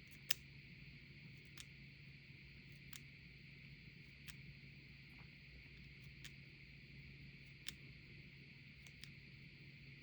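Zoom button of an Insta360 Luna Ultra clicking as it is pressed, a sharp tick about every second or so, the first the loudest, over a faint steady electronic hiss and hum. The clicks come from play in the button and are picked up by the recording.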